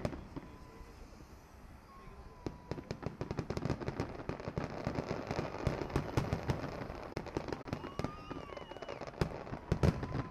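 Aerial fireworks display: a dense, rapid crackling of many small pops throughout, with several louder bangs near the end.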